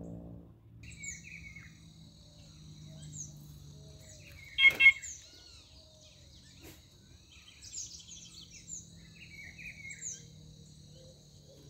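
Birds chirping along the riverbank in many short, downward-sliding calls over a steady high hum. A loud double sound, two quick bursts close together, cuts in a little before halfway.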